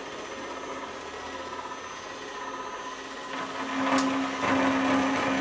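Power saw running, then cutting into half-inch extruded 6061 aluminum plate from about three seconds in. The sound grows louder with a steady tone, and there is a sharp click about four seconds in.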